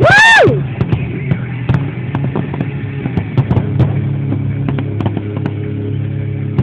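A loud whistle that rises then falls over about half a second, then scattered sharp pops and crackles from fireworks over a steady low hum and music.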